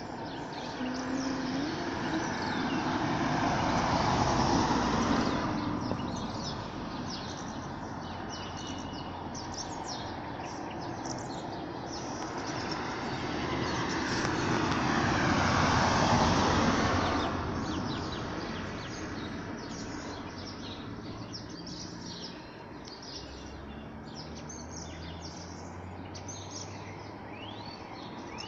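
Cars passing on the street, their tyre and engine noise swelling and fading twice, about four and about sixteen seconds in, with small birds chirping throughout.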